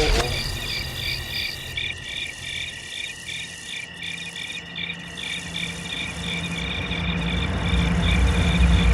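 Cricket chirping sound effect: a steady, evenly pulsing high trill, with a low rumble swelling in during the second half.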